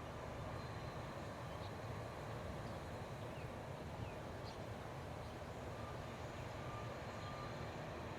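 Rice-field ambience: a steady low rumble and hiss, with a few faint, short high chirps scattered through it.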